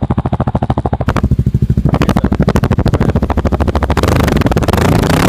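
Kawasaki KLX 250S single-cylinder four-stroke dirt bike engine running through an FMF Q4 exhaust, firing in even pulses at idle. It is blipped about two seconds in and revved higher near the end.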